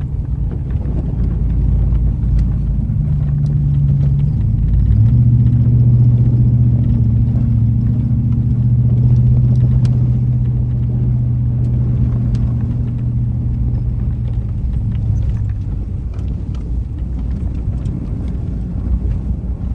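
Jeep driving, heard from inside the cab: a steady engine drone over low tyre and road rumble, with scattered light clicks and rattles. The engine note changes about three and five seconds in, then holds until it eases off a little past the middle.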